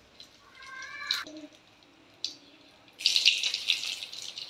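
Hot oil in an aluminium kadai sizzling with a few sharp pops; about three seconds in it bursts into loud, crackling sizzling as dried red chillies go into the oil for a tempering.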